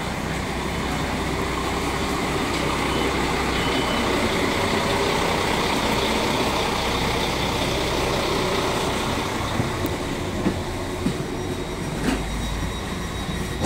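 Alstom Coradia LINT 54 diesel railcar standing at the platform with its engine running, a steady hum and rush. A few short knocks near the end as passengers step aboard.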